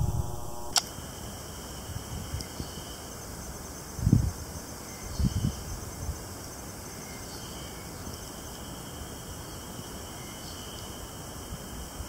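A chorus of Ezo spring cicadas (Terpnosia nigricosta) in the trees, calling in steady, repeated high phrases. There is a sharp click about a second in, and low thumps on the microphone about four and five seconds in.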